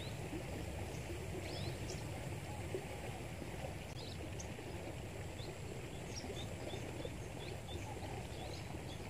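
Riverside ambience: a steady low rushing with small birds chirping, short high chirps scattered throughout and more frequent in the second half.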